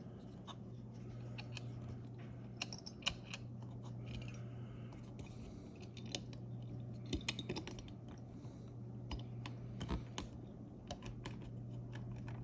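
Small metal parts clicking and tapping at irregular intervals as a Geissele trigger, sear and springs are fitted by hand into an AR-15 lower receiver, over a steady low hum.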